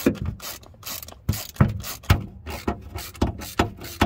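Socket ratchet on a long extension clicking in repeated short runs, a couple a second, as the lift pump's mounting bolts are run into the engine block.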